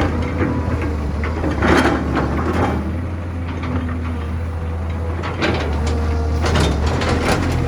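Heavy diesel construction machinery running steadily with a low drone, with intermittent knocks and scraping as an excavator digs and loads dirt, loudest about two seconds in and again over the last couple of seconds.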